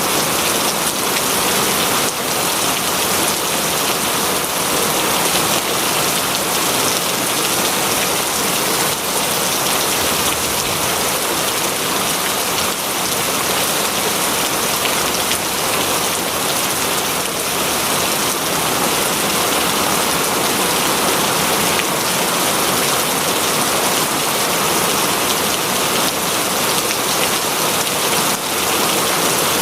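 Heavy rain falling steadily, a dense hiss of many drops striking a surface.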